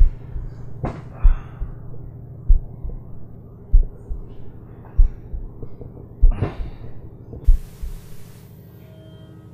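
Suspense film score: a deep heartbeat-like thump about every one and a quarter seconds over a steady low drone, with two short noisy swells. The thumps stop after about eight seconds, just after a brief burst of hiss.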